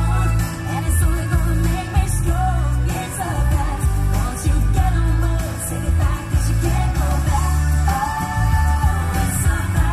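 Pop music with a voice singing over a heavy, pulsing bass.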